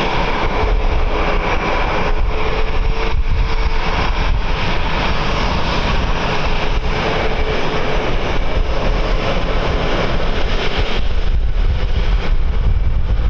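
Airliner engines running, a steady tone over a heavy rumble, with wind buffeting the microphone.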